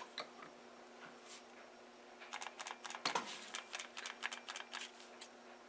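Light, irregular clicking from a handheld cordless drill and a small plastic part being handled, starting a little over two seconds in and going on almost to the end, with the drill's motor not running. A faint steady hum sits underneath.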